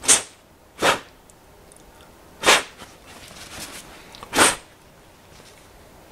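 Aerosol carburetor cleaner sprayed in four short hissing bursts, unevenly spaced, into a carburetor body to flush its passages.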